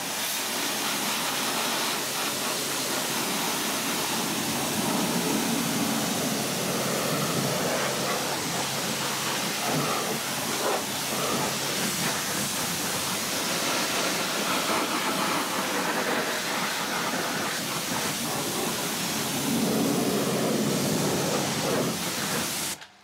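Kranzle K7 pressure washer jet blasting water onto a car's tyre and wheel arch, a steady hiss and splatter as it rinses off the pre-foam and loose mud. The spray cuts off suddenly near the end.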